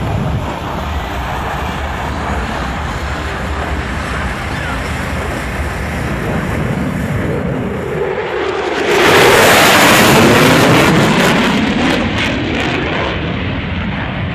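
Aircraft passing low overhead: an engine roar swells about eight seconds in, is loudest for the next few seconds with a sweeping, phasing sound as it passes, then fades.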